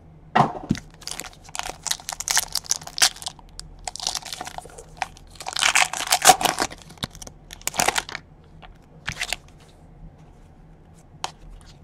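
Gold foil wrapper of a Panini Gold Standard football card pack being torn open and crinkled by hand: irregular crackles and rips over about nine seconds, loudest about six seconds in.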